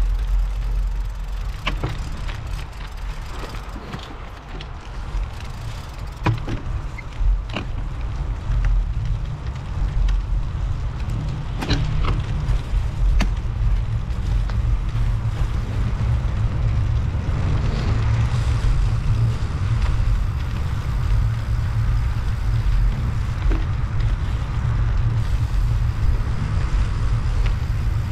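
Riding noise picked up by a bicycle-mounted action camera: a low wind rumble on the microphone that grows louder after about eight seconds. A few sharp clicks and knocks from the bicycle come in the first half.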